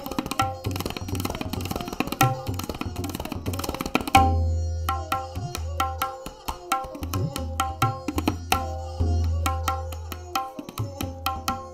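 Tabla solo playing a gat, with dense, rapid strokes on the right-hand drum for about four seconds. Then the left-hand bass drum (bayan) comes in with loud, resonant strokes that ring under sparser right-hand strokes.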